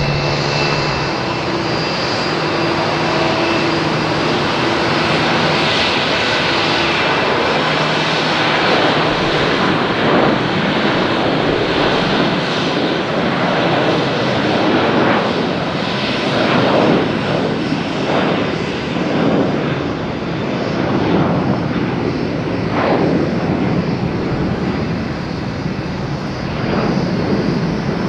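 Fixed-wing aircraft engines running: a steady hum with a few held tones for the first several seconds, then a rougher, fluttering roar for the rest.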